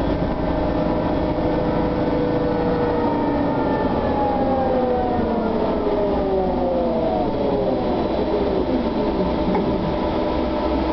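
SOR TN12A trolleybus's electric traction drive heard from inside the passenger cabin: a whine of several tones that falls steadily in pitch over about seven seconds as the trolleybus slows, then settles into a steady hum.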